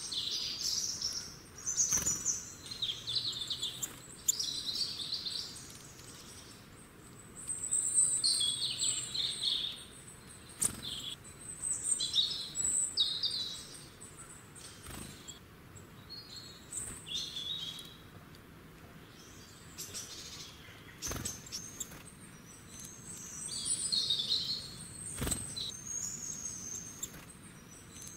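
Small birds chirping in repeated short bursts of high calls, with a few faint knocks in between.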